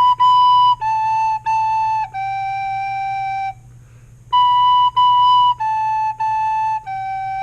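Soprano recorder playing the phrase B, B, A, A, G twice, with a short pause between: separate, evenly tongued notes, each phrase ending on a longer held G.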